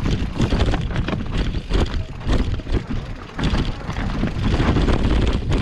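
Mountain bike rolling over rough, rocky trail: a dense, irregular clatter of knocks from tyres and frame, with wind buffeting the microphone as a heavy low rumble.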